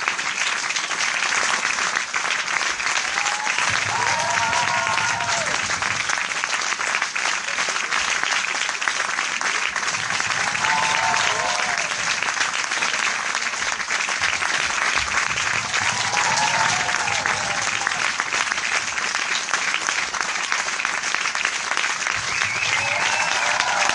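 A large crowd applauding steadily, a dense, even clatter of many hands clapping. A few voices call out over it about every six seconds.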